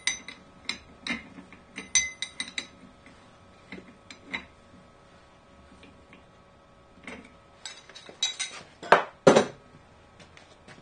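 Steel wrenches clinking against the collet nut and spindle of a CNC router as a V-bit is tightened in. The clicks are sharp with a brief metallic ring, a quick run of them in the first few seconds, then a second cluster ending in two louder knocks about nine seconds in.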